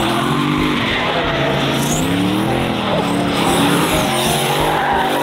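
Turbocharged Nissan 350Z drift car sliding through a corner, its engine revs rising and falling over and over as the rear tyres scrub and squeal across the track.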